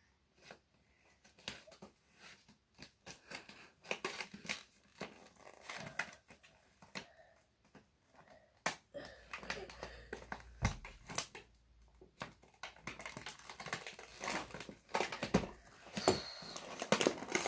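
Scissors snipping and plastic wrapping crinkling and rustling as a tightly wrapped toy capsule is cut open, in irregular clicks and rustles that come thicker in the second half.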